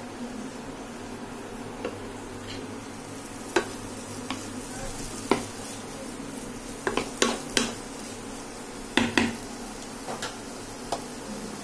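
A cooking utensil stirring and tossing boiled chowmein noodles and vegetables in a non-stick kadai, clacking against the pan irregularly, with the clacks bunched together around the middle. A low, steady frying sizzle runs underneath.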